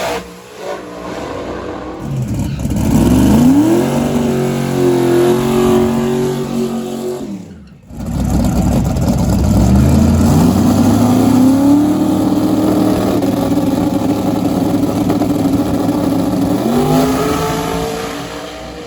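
Drag race car engines at high rpm on runs down the strip. In each, the pitch sweeps up as the car accelerates and then holds high and steady. The sound cuts off abruptly about eight seconds in, a second run starts, and the pitch rises once more near the end as it fades.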